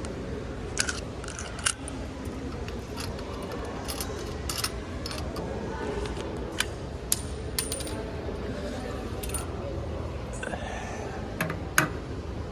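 Coins clinking and rattling in a coin-operated toy vending machine: a string of sharp metallic clicks at irregular intervals over a steady background hum.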